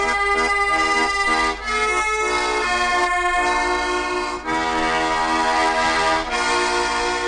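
Instrumental music led by an accordion, holding sustained chords that change every second or so, with no singing.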